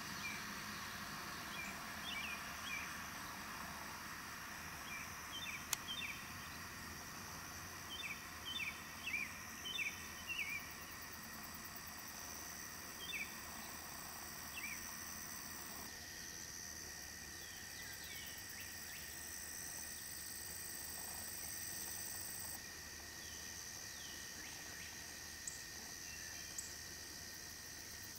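Rural field ambience: a steady high insect drone with short, high bird chirps in small clusters through the first half, and one sharp click about six seconds in.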